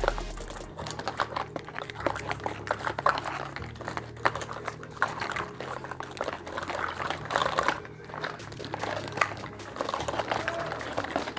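Small plastic and metal pieces of a miniature toy kitchen set being handled, with many light clicks and taps in quick succession.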